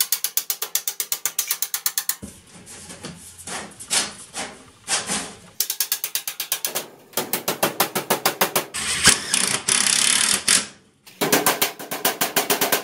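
Work on galvanized sheet-metal ductwork: several bursts of rapid, evenly spaced clicking, about a dozen clicks a second, with a short steady hiss about nine seconds in.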